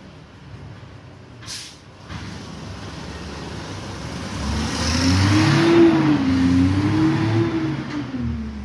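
A motor vehicle going by, its engine note rising and falling twice as it grows louder and then fades, after a short hiss about a second and a half in.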